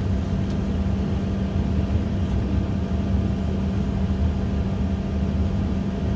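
Steady cabin noise inside an Embraer E145 on the ground before takeoff: a constant hum over a low rumble, from the engines at idle and the cabin air system.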